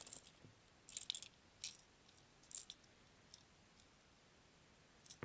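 Faint light clicks of small plastic Lego pieces being handled, about half a dozen scattered over the first few seconds, then near silence.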